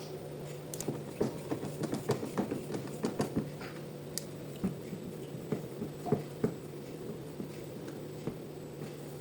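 A steady low hum with many irregular light clicks and knocks over it.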